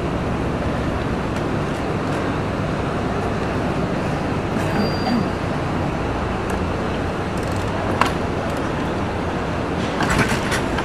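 Steady rumble of street traffic and idling engines, with a sharp click about eight seconds in and a few more clicks near the end.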